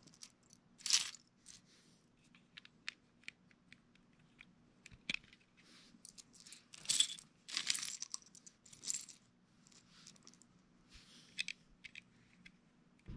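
Plastic LEGO pieces clicking and clattering as hands sort through a loose pile and press bricks onto a model: many small sharp clicks, with louder rattling scrapes about a second in and again several times between seven and nine seconds.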